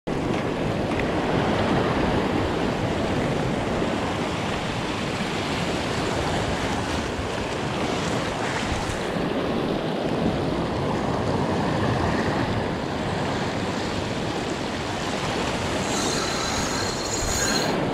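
Ocean waves surging and washing over a reef rock shelf, a steady loud rush of surf.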